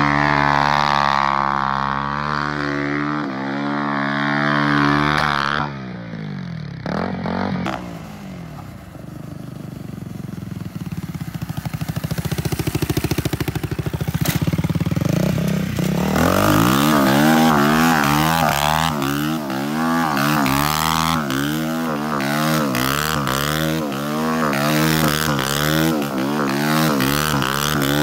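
A Honda Grom's swapped-in CBR250R single-cylinder engine is held at high, steady revs during a burnout. The revs fall away a few seconds in and it runs low and quieter for several seconds. In the second half it is revved up and down over and over, about once a second.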